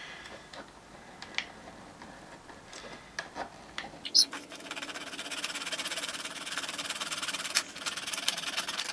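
A few faint clicks. Then, from about four seconds in, a small hand file is worked quickly back and forth on a piece of wood, making a steady rasping.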